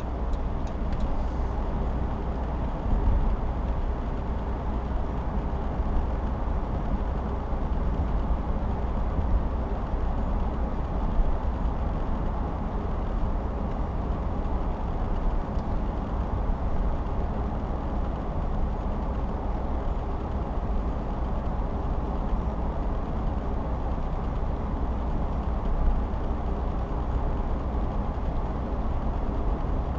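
Steady road and engine noise of a car driving at highway speed, heard from inside the cabin, with a few light thumps along the way.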